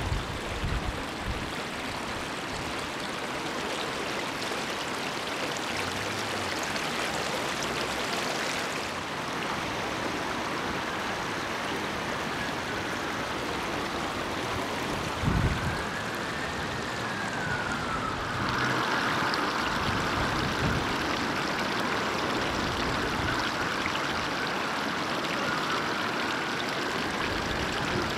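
Floodwater rushing steadily across a flooded street, with an emergency vehicle's siren wailing slowly up and down from about a third of the way in. A brief thump comes about halfway through.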